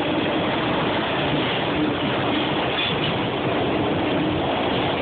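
Autorack freight cars of a CSX train rolling past close by: steady, even noise of wheels on rail, with no distinct clacks or horn.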